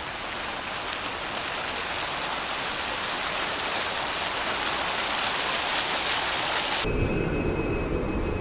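Steady hiss of heavy rain. About seven seconds in it cuts off abruptly and gives way to a low, steady rumble.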